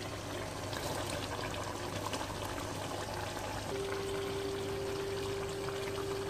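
Chicken pochero stew simmering in a pot on a stove, a steady watery bubbling hiss. A steady tone comes in about halfway through and holds.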